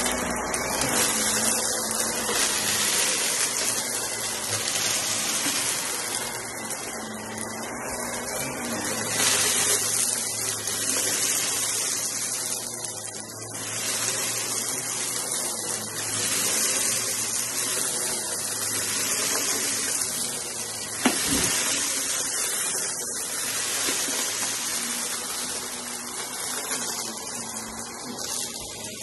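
Corded stick vacuum running over shag rugs, its steady suction noise swelling and dipping as the head is pushed back and forth, with the crackle of scattered debris being sucked up. One sharp knock about two-thirds of the way through.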